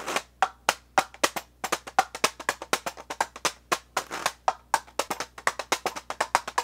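Washboard played by hand: fingers tapping and scraping across its corrugated metal surface in a quick, steady rhythm of sharp clicks, about six strokes a second.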